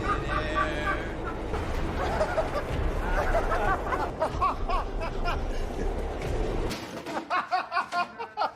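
Outdoor street ambience: a steady low traffic rumble with people's voices over it. Near the end it cuts off abruptly, and a series of sharp, regular percussive strokes follows.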